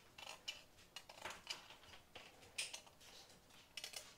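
Scissors trimming fine fly-netting mesh along the edge of a metal vent cover: a series of short, light snips and clicks at uneven intervals, several close together near the end.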